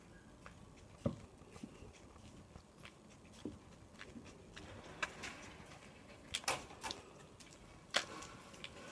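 Footsteps of a person walking on asphalt, heard as irregular scuffs and clicks, with a few sharper clicks in the second half.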